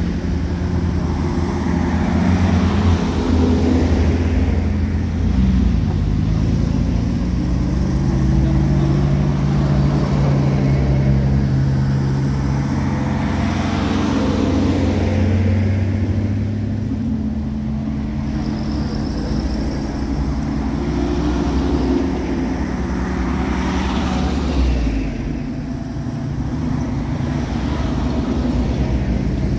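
Convoy of WWII-era military vehicles driving past one after another, their engines running. The sound swells and fades several times as each vehicle passes close by.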